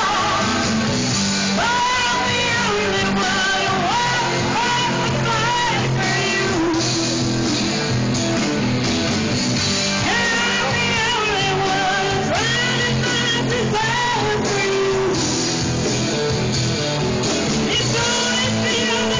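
A woman singing karaoke into a microphone over a backing track with guitar.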